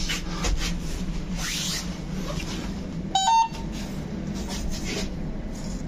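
Lift button-panel beep as a floor button is pressed: a short two-note beep stepping up in pitch about three seconds in, the loudest sound here. Underneath runs a steady low hum with some rustle from handling.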